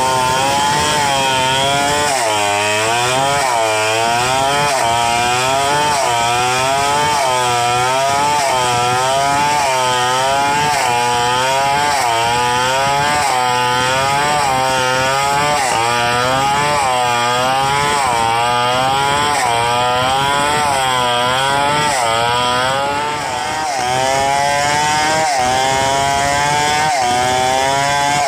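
Stihl 070 two-stroke chainsaw running hard while ripping lengthwise along a palm log. The engine pitch dips and recovers about once a second as the chain bites into the wood and is eased off.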